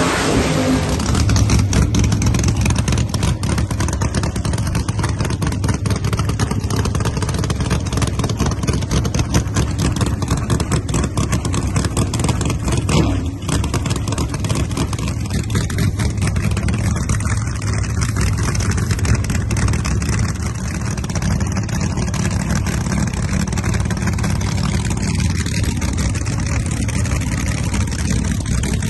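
Big-block V8 Pro Nitrous drag-race engines running loud and lumpy at the starting line. A brief nitrous purge hisses a little before halfway.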